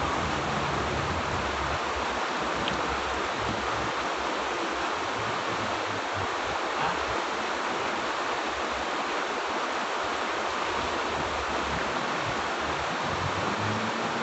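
Shallow river running over a rocky bed, a steady rushing of water.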